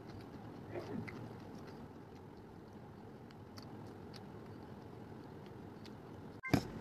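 Quiet chewing of noodles, with faint clicks of a fork against a metal plate and one sharp click near the end.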